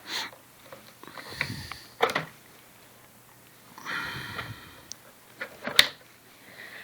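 Handling noises as the plastic body shell of an RC monster truck is taken off: scattered clicks and plastic rustling, with one sharp click near the end the loudest.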